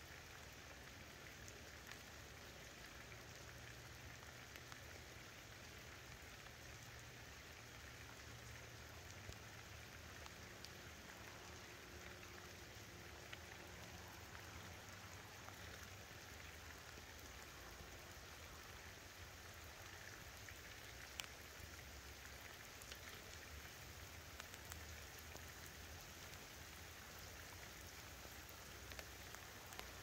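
Rain falling steadily and faintly, an even patter with scattered sharper drop ticks.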